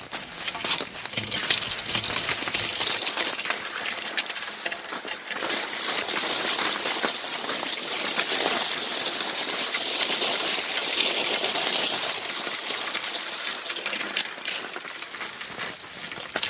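Cross-country skis hissing and scraping as they glide over snow, with irregular sharp clicks through it from skis and pole tips striking the snow.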